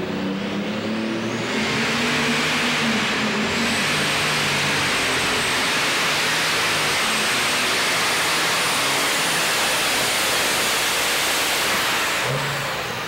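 Methanol-burning International light super stock pulling tractor with a turbocharged engine, making a pull. The engine opens up about a second and a half in and runs at full power for about ten seconds with a high turbo whistle over the roar, then backs off near the end.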